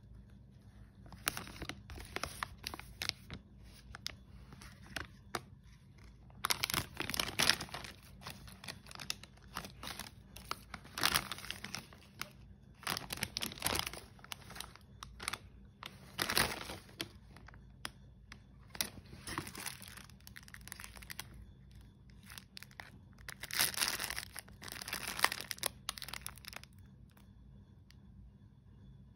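Crackly plastic biscuit wrapper crinkling and rustling as it is handled, in irregular bursts a few seconds apart with quieter handling in between.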